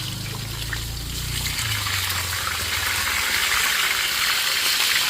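Fish sizzling in hot oil as it fries, a steady hiss that grows slightly louder. A low hum underneath fades out about two seconds in.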